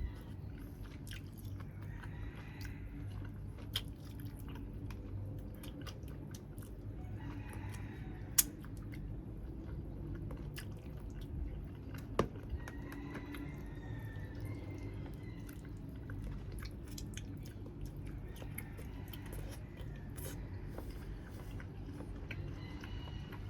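Close-up chewing and biting of grilled chicken, wet mouth sounds with a few sharp clicks scattered through.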